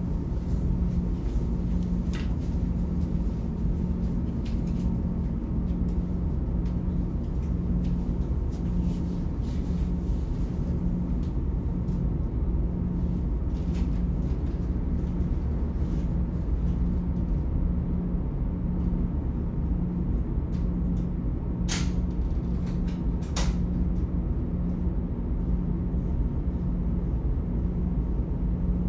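Car ferry's engines heard inside a cabin: a steady low rumble with a regular pulsing hum. Two sharp clicks, about a second and a half apart, come late on.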